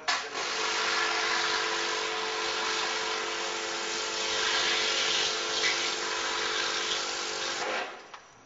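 Pressure washer spraying a high-pressure water jet against a stone column, a steady hiss over the hum of its pump. It starts abruptly and cuts off shortly before the end.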